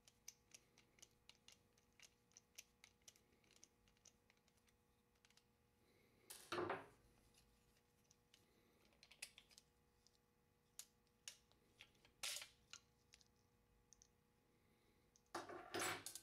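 Faint clicks and light metallic knocks from taking apart the creaser arm assembly on an automatic drywall taper head: a screwdriver working a screw, then the arm being popped out of the side plate by hand. A louder knock comes about six and a half seconds in, and a cluster of knocks near the end.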